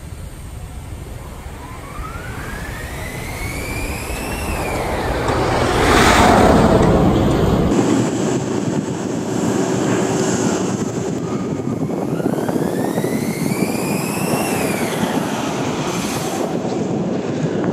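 Kingda Ka roller coaster's hydraulic launch winch whining, its pitch rising for about three seconds and then falling, followed by a loud rush as the launched train passes at speed. This happens twice.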